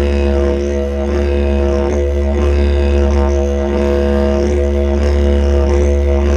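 Didgeridoo soundtrack: a steady low drone with shifting, wavering overtones above it.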